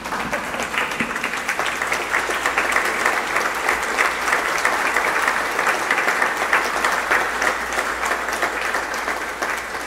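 A church congregation applauding: dense, steady clapping from many people, dying down a little near the end.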